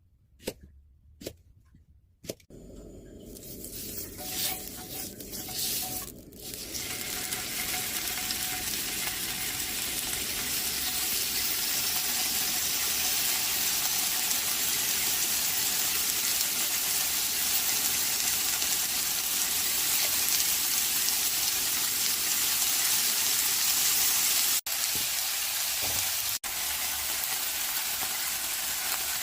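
Chicken breast frying in a frying pan: a few light clicks at the start, then a sizzle that swells over the first several seconds and holds steady, cut off for an instant twice near the end.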